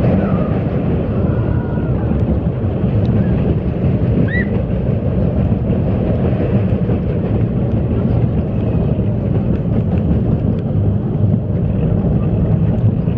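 Big Thunder Mountain mine-train roller coaster heard from a seat on the moving train: a loud, steady rumble of the cars running along the track.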